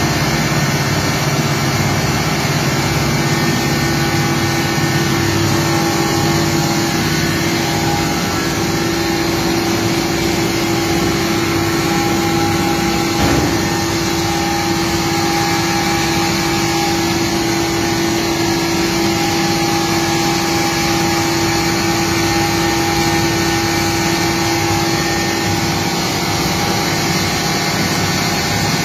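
Macaroni extruder machine running steadily, its electric motor and worm gearbox giving a constant hum over even mechanical noise.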